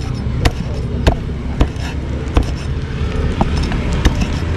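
Cleaver chopping grilled pork on a chopping board, about seven sharp knocks spaced roughly half a second apart, over a low steady rumble.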